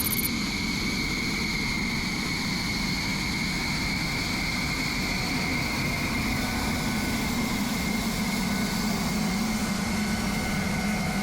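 Jet engine of a fighter aircraft idling during ground refuelling: a steady high whine over a constant rumble.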